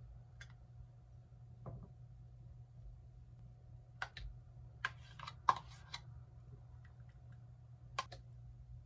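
A spoon clicking and scraping against a plastic yogurt tub as thick yogurt is scooped into a ceramic bowl. There are scattered soft clicks, with a small cluster about five seconds in, over a faint steady hum.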